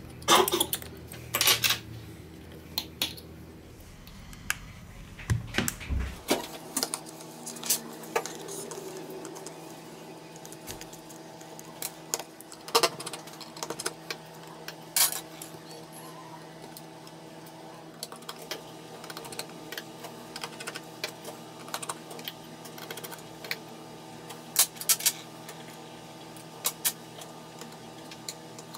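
Scattered light clicks and taps of small repair tools against a phone and its parts as it is taken apart. A steady hum starts about six seconds in.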